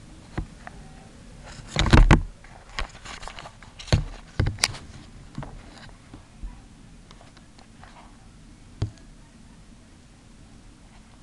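Handling noise as the camera is moved about close inside the hamster's bin: a cluster of knocks and scrapes about two seconds in, a few sharp knocks around four seconds, then a few scattered taps.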